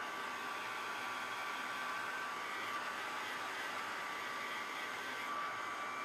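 Handheld hair dryer running steadily, blowing on wet acrylic paint to dry it: a constant rushing hiss with a faint whine in it.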